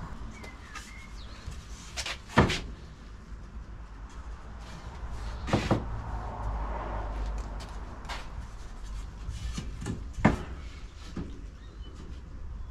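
Wooden boards being handled and set down on a workbench: a few sharp wooden knocks, the loudest about two seconds in, others near the middle and about ten seconds in, with lighter clatter between.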